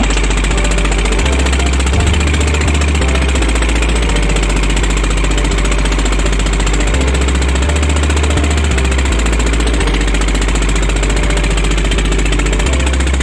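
A pompong's inboard engine, a small wooden motorboat's motor, running steadily with a fast, even chugging beat.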